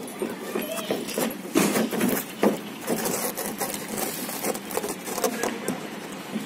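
Irregular clicks, taps and rustling as a wiring harness with a plastic connector is handled and pushed up through an opening in a car's roof headliner.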